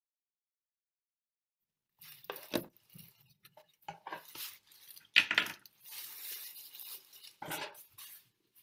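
Silent for about two seconds, then irregular small clicks, clinks and rustles, like objects being handled on a table.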